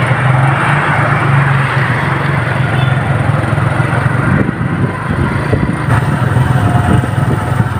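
A motorcycle engine running steadily, with a broad rush of road and wind noise over it; the sound shifts a little about five seconds in.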